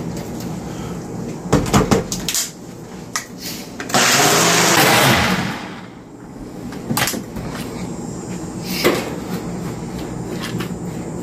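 Ninja personal blender running in one short burst of about a second and a half, blending a thick oat-and-nut smoothie, then spinning down. A few knocks and clicks before and after as the blender cup is handled.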